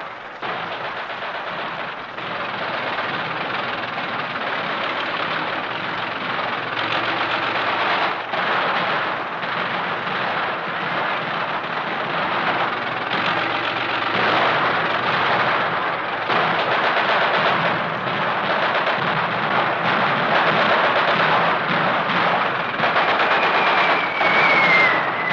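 Vintage battle sound-effect recording of tanks in combat: engines and tracks running under continuous machine-gun and gun fire, with a falling whistle near the end. The sound is thin and narrow, typical of an old recording.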